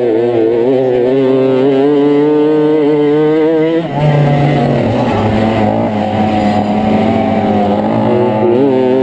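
Small two-stroke moped engine running hard at high revs, its pitch wavering slightly. From about four seconds in, the sound turns rougher and denser for about four seconds before settling back.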